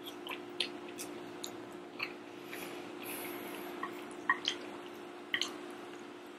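Close wet mouth sounds of a person eating jajangmyeon noodles in black bean sauce: slurping noodles in, then chewing with a string of short, sharp smacks and clicks.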